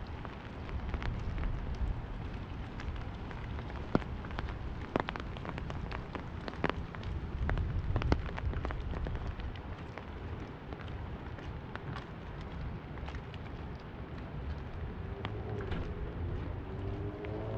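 Rain pattering on an umbrella overhead, a steady hiss with many separate sharp drop taps. A faint humming tone comes in near the end.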